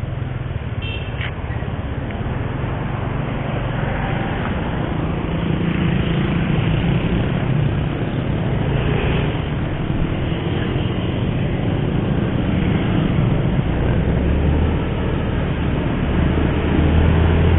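Yamaha Mio scooter's engine running under way, heard from on board with road and air noise. The engine note shifts about five seconds in and again near the end as the rider accelerates and slows through traffic.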